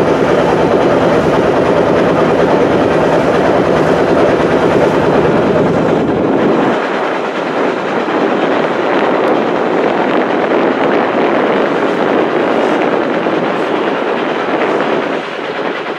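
Engine of a motorised river boat running steadily under way, a low rhythmic chugging with rushing wind and water. About seven seconds in the low rumble drops away and the rushing noise takes over.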